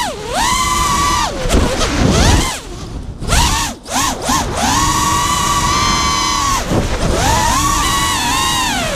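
Brushless motors of a 5-inch FPV quadcopter (Lumenier RX2206 2350Kv on KISS 24A ESCs) whining, with the pitch rising and falling as the throttle is worked. The pitch drops sharply at the start, there are several quick chops and punches around three to four seconds in, then a long steady high whine, and a slow fall in pitch near the end.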